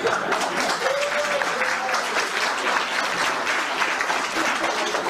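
Audience applauding, a dense steady clapping with a few voices rising from the crowd.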